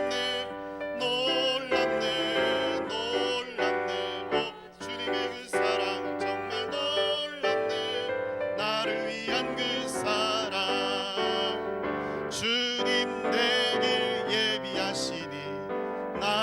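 Church praise-band music led by piano and keyboard, an instrumental stretch between two praise songs.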